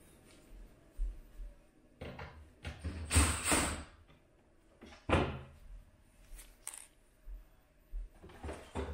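Work noises inside an emptied refrigerator: a cordless drill-driver and plastic shelf parts knocking and sliding as screws are undone. The loudest stretch comes two to four seconds in, then one sharp knock at about five seconds and a few lighter knocks near the end.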